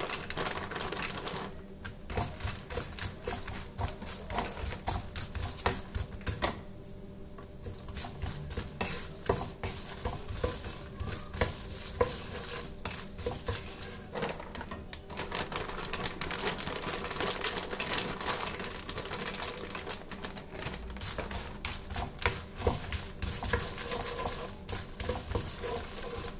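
Wooden spatula stirring puffed fox nuts (makhana) around a metal kadai, a dense continuous clatter of light clicks and knocks as the nuts tumble against the pan. Near the start more nuts are tipped in from a bag.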